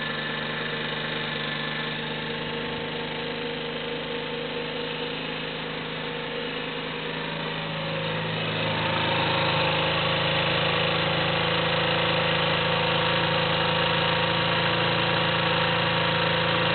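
2017 Ice Bear 50cc moped engine idling steadily on a cold start after five months of storage. It grows louder from about halfway through, with a stronger low hum, heard close at the exhaust muffler.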